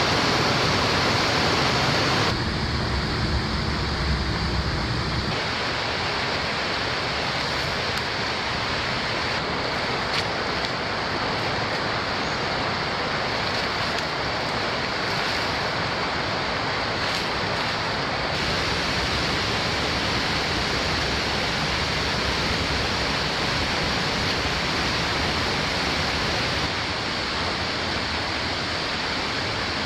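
Steady rush of flowing, falling water. Its tone changes abruptly a few times: about two and five seconds in, around eighteen seconds, and near the end.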